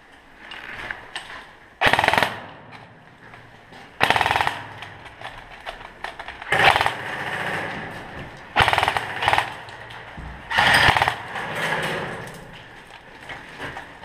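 Airsoft gun firing five short rapid-fire bursts, about two seconds apart.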